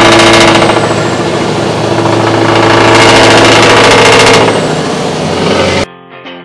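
Scania V8 truck engine (Euro 5) running loud under load, with a metallic sound that swells twice. It cuts off suddenly near the end and electric guitar music takes over.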